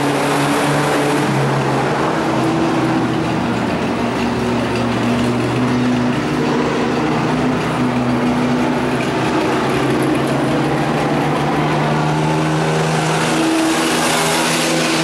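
Race pickup truck engine running at speed around a dirt oval, with a loud steady engine note that shifts a little in pitch now and then.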